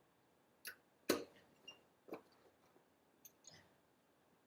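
A few scattered sharp clicks and one louder knock about a second in: a breaker bar and socket being worked on a car's wheel lug nuts.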